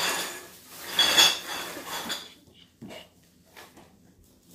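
Rustling with light metallic clinking, in two bursts over the first two seconds or so, then a few faint ticks.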